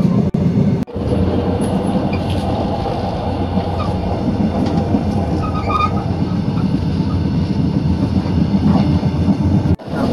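Passenger train running, heard from the vestibule between cars: a loud, steady rumble of wheels on track with the clatter between the carriages.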